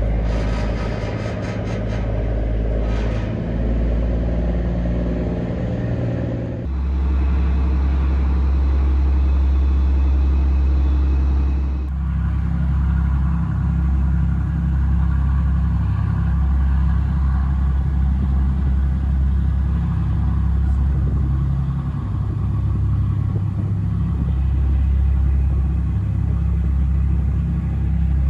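Engine running steadily with a deep low hum. The sound shifts abruptly twice, about seven and twelve seconds in.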